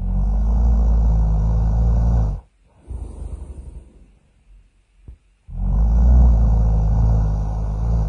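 Really loud cartoon snoring: two long, rumbling snores, each a couple of seconds, with a softer, hissing breath in between.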